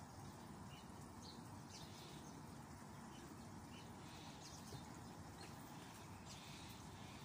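Near silence: a faint steady low background hum, with a few faint, short high chirps scattered through.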